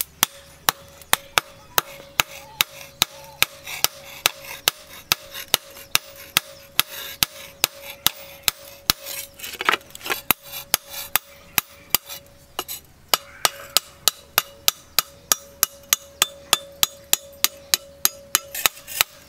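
Hand hammer forging a steel knife blade on a small post anvil: a steady run of sharp blows, about three a second, with a ringing tone under them. The blows go lighter for a couple of seconds past the middle, then pick up again.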